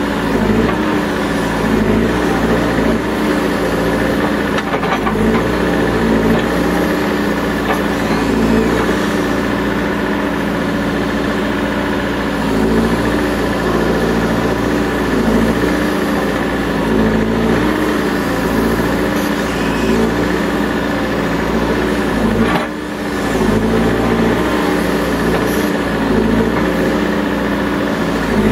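Diesel engine of a CAT 420E IT backhoe loader running steadily, its pitch dipping and recovering every second or two as the machine is worked. The sound drops briefly about 23 seconds in.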